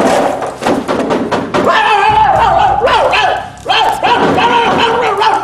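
A run of sharp thuds for the first second and a half, then a high-pitched voice crying out in long, wavering cries.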